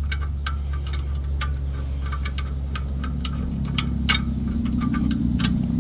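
Light, irregular metallic clicks and taps of a hand wrench working the 18 mm caliper bracket bolts on a pickup's rear brake, over a steady low engine-like hum that strengthens a little after about three seconds.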